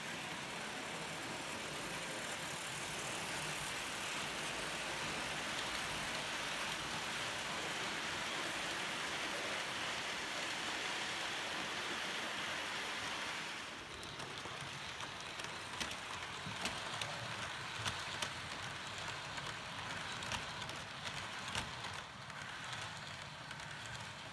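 H0-scale model trains running on the layout: a steady whirring rush of metal wheels rolling on track. About halfway through it drops to a quieter run with scattered sharp clicks.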